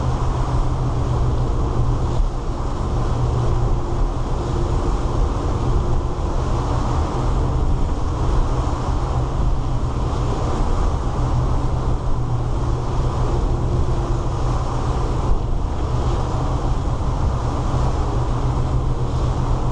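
A 2000 Sea Ray 34-foot cruiser's engines running steadily at speed, with a constant rush of wind and water, heard from the helm inside the canvas enclosure.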